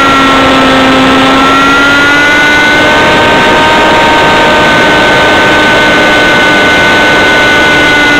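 Single-cylinder ASP model engine of an RC aircraft running at high speed in flight, heard from just behind the engine with air rushing past. Its pitch sags slightly about a second in, then settles a little higher from about three seconds on.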